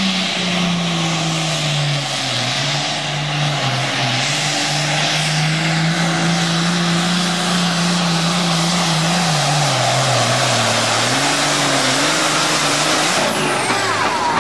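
John Deere Super Farm pulling tractor's diesel engine running at full power under load while it drags the weight sled. The engine note holds fairly steady and dips in pitch twice before climbing again.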